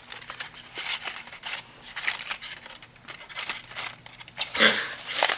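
Irregular small clicks, scrapes and rustling of small electronic parts and wire leads being handled and sorted at a workbench. A short vocal sound comes near the end.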